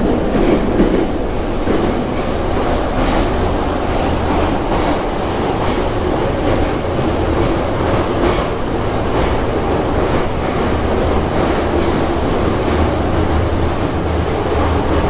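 Metro train running at speed, heard from inside the passenger car: a steady rumble of wheels and motors, with the rattle of the car body and frequent short clicks from the wheels on the track.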